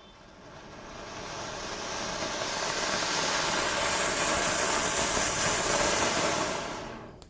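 Flower pot firework (a cone fountain) burning: a dense rushing hiss of spraying sparks that swells over the first few seconds, holds, and dies away near the end as the fountain burns out.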